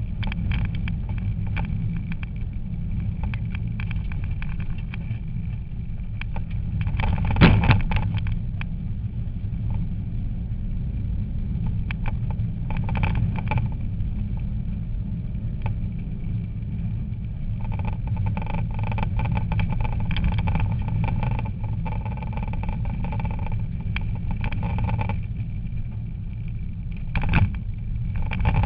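Rally car driven hard on a stage, heard from inside the cabin: steady engine and road noise with bursts of crackling. There is a heavy knock about seven seconds in and another near the end.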